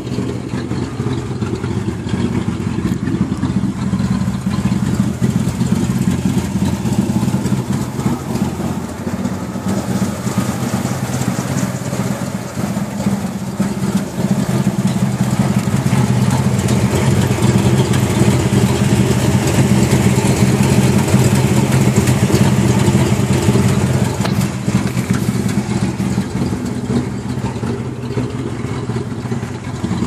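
Cadillac Seville engine idling steadily, heard through its exhaust at the rear of the car, a little louder about midway through.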